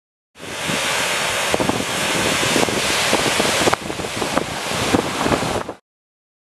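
Water rushing through the gates of a small concrete dam and churning into the rocky river below, mixed with wind buffeting the microphone. It starts about half a second in and cuts off abruptly near the end.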